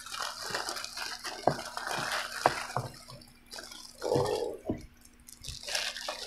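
Clear plastic bag crinkling and rustling as a plastic car mount is pulled out and handled, with several sharp clicks of its hard plastic parts, the loudest about four seconds in.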